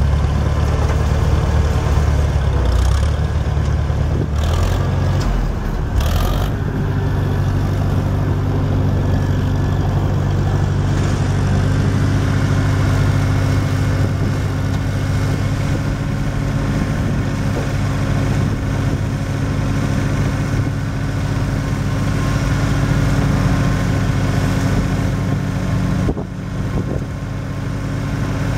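McCormick Farmall 400's four-cylinder C264 gasoline engine running steadily as the tractor is driven, dipping briefly in level near the end.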